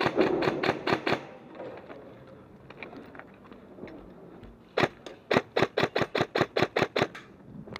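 Airsoft rifle firing rapid strings of shots, a brief string at the start and a longer one of about a dozen shots from about five seconds in.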